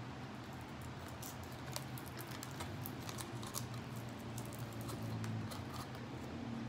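Close-up eating sounds: fried chicken pulled apart by hand and chewed, giving a scattered run of small sharp crackles and mouth clicks over a low steady hum.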